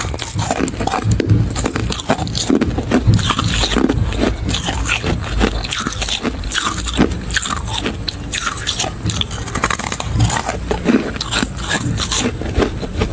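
Close-miked biting and chewing of large chunks of freezer frost: a continuous run of crisp crunches and crackles.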